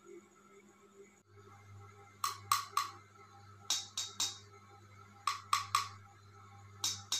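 Sharp clicks in groups of three, four groups about a second and a half apart, over a low steady hum.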